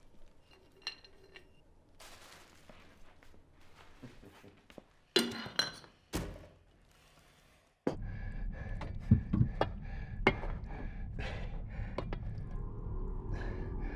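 Scattered clinks and knocks of hard objects, with a loud clatter about five seconds in. After a short quiet, a steady low hum sets in under continued clinking.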